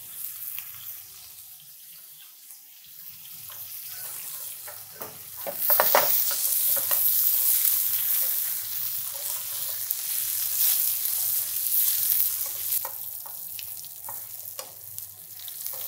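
Bone-in pork loin and new potatoes frying in butter and rosemary in a pan: a steady sizzle that swells sharply and grows loud about a third of the way in, then eases slightly near the end. A few clicks of metal tongs against the pan come as the sizzle swells.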